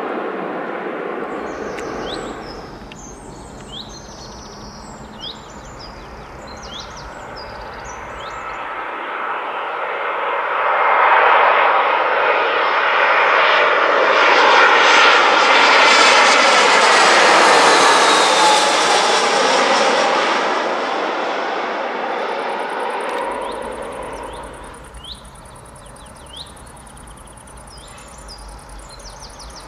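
Twin-engine jet airliner passing low overhead on final approach: its engine noise swells over several seconds, is loudest in the middle with a whine sliding down in pitch as it passes, then fades away. Birds chirp before and after the pass.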